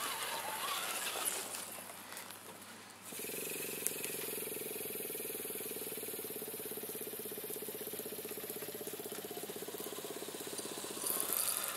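Radio-controlled scale crawler truck's electric motor and gears whining steadily under constant throttle, with a fast, even flutter. It starts abruptly about three seconds in and stops near the end. Before it there is a softer, unpitched rushing noise.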